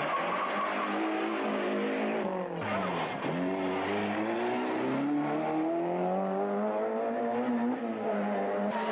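Rally car engines revving as cars pass one after another. The engine note drops about two and a half seconds in, then climbs steadily under acceleration.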